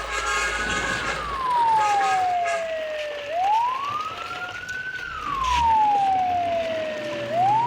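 Wailing siren, each cycle rising quickly and then falling slowly, about two full cycles.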